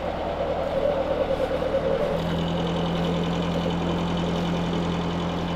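Sailboat's inboard diesel engine running steadily under the cockpit; its hum changes about two seconds in as a new steady tone joins.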